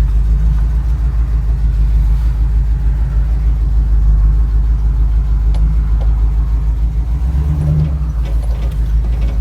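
1972 Chevrolet Camaro RS being driven, heard from inside the cabin as a steady low engine and road rumble.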